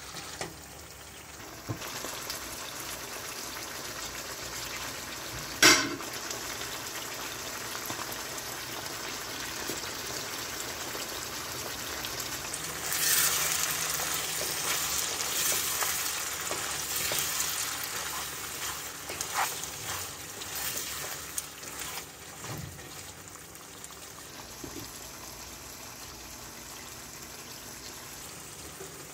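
Mutton pieces frying in oil in a karahi wok on high flame, sizzling steadily as they are stirred with a spatula. The sizzling and scraping grow louder in the middle, and there is one sharp knock about six seconds in.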